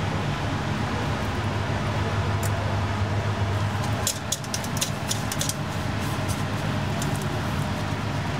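A steady low mechanical hum, with a quick run of sharp clicks and clatters about halfway through.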